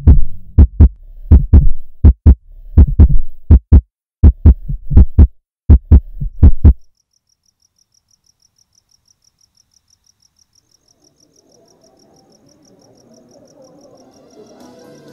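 Heartbeat sound effect: loud doubled low thumps, lub-dub about every 0.7 s, cutting off abruptly about seven seconds in. A faint, rapid, high-pitched ticking like a cricket follows, and soft music fades in near the end.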